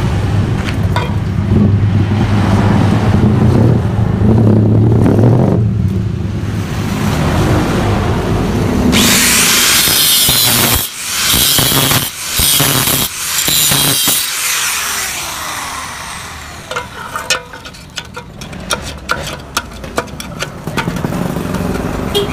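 Workshop power-tool noise during exhaust fabrication. A steady low motor hum runs for several seconds, then about five seconds of loud, harsh grinding-like noise, then a run of sharp clicks and crackles.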